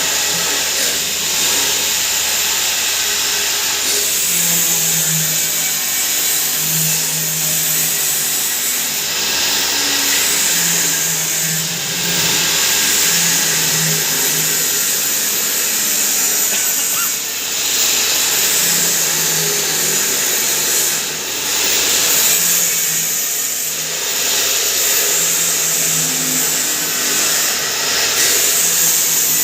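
Turmeric/spice pulverizer grinding machine running, a loud steady whirring hiss with brief dips in level now and then.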